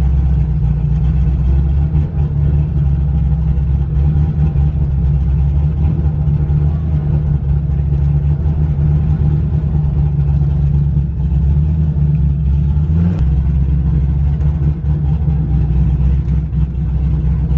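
Car engine heard from inside the cabin, running with a steady low rumble as the car rolls slowly along, its note briefly changing about thirteen seconds in.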